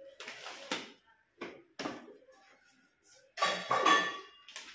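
Books and paper being handled: several short bursts of rustling and shuffling, the loudest about three and a half seconds in as a stack is set onto a wooden shelf.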